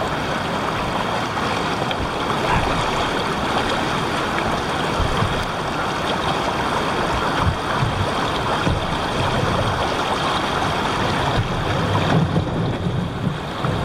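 Steady rush of shallow river water running fast over rocks, with a few splashes of feet wading through it.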